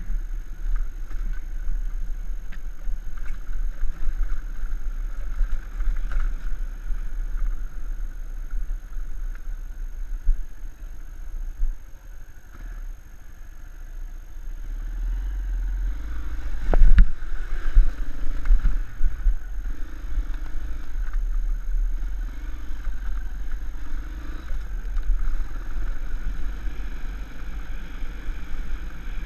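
Small trail motorcycle's engine running at low speed on a rough dirt trail, heard from the handlebars with a heavy low rumble from the jolting ride. It eases off about twelve seconds in, and a single loud thump comes about seventeen seconds in as the bike reaches a shallow stream crossing.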